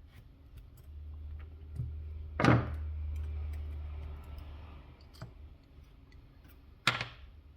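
Small screws being undone from a plastic sensor housing: light clicks and ticks of a screwdriver and handled parts, with a low hum through the first half and two sharp knocks, the louder one about two and a half seconds in and another near the end.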